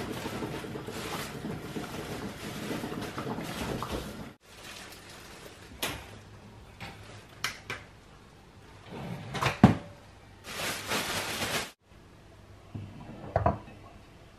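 Kitchen handling sounds: a plastic bread bag rustling at a cupboard shelf, then a series of separate knocks and clicks as bread slices are put into a pop-up toaster, with the loudest knock about two-thirds of the way through.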